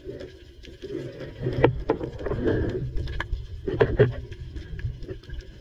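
Muffled water sound as heard by a submerged action camera, a churning rumble, with a few sharp clicks and knocks, loudest about one and a half seconds in and again about four seconds in.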